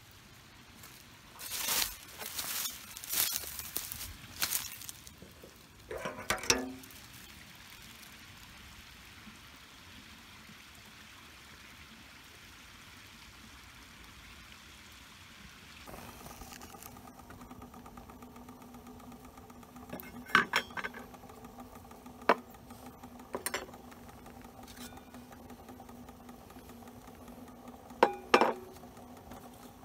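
Water splashing and sloshing in a metal pail with a ringing metal clank, then a faint steady hiss. Later, stainless steel camp cups and a spoon clinking together several times.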